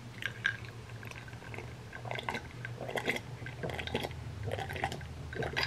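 Soft close-up eating sounds: chewing, lip smacks and finger-licking, then swallowing sips of a drink from a glass about four seconds in.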